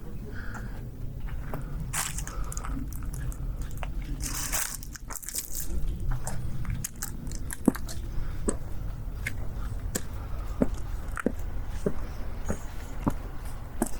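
Footsteps of someone walking at a steady pace, short sharp steps about every two-thirds of a second, over a low steady rumble, with a brief hiss about four to five seconds in.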